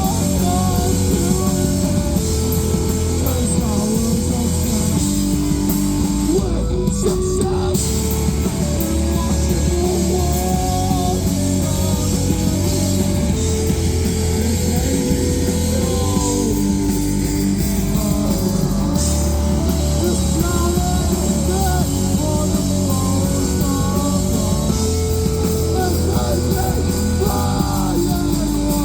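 Live rock band playing loudly and steadily, with electric guitars, bass and a drum kit.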